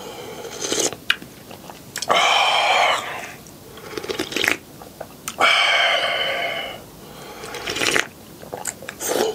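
A person loudly slurping clam noodle-soup broth from a ladle: two long slurps, about two seconds in and about five and a half seconds in, with small mouth clicks and smacks between.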